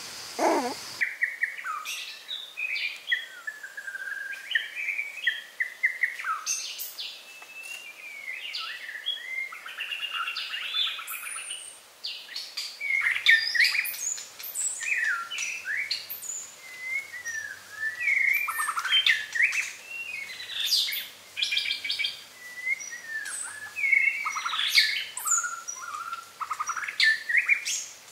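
Many birds chirping and calling over one another, a steady stream of short notes that rise and fall quickly in pitch.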